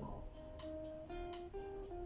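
Soft background music: a slow melody of single plucked guitar notes, each held about half a second before the next.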